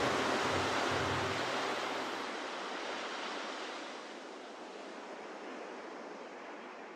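A steady surf-like rushing noise fading out slowly. Under it, the last low notes of the music die away about two seconds in.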